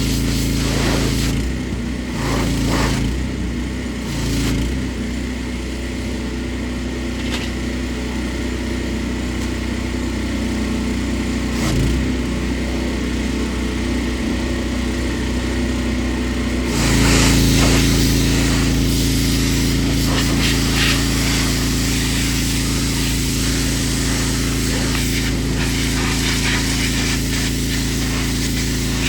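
Pressure washer running steadily, its motor giving a constant hum. A little over halfway through, a louder hiss of spraying water comes in and carries on.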